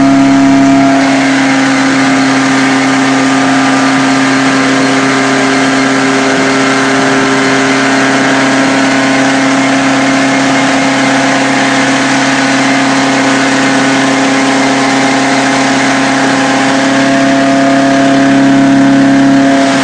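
Ford Escort RS2000 16v's four-cylinder engine, breathing through GSX-R motorcycle individual throttle bodies, running hard on a rolling road and held at a steady speed, its pitch staying even. It is slightly louder about the first second and again near the end.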